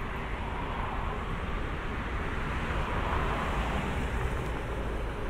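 Steady outdoor background rumble and hiss, with no distinct event.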